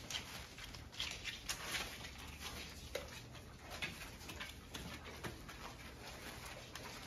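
Golden Retriever puppies moving about on puppy training pads: irregular light pattering, ticking and rustling of small paws and claws on the pads.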